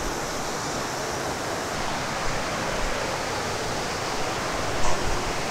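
Steady rush of flowing water from a stream or small waterfall. There is a brief louder knock just before the end.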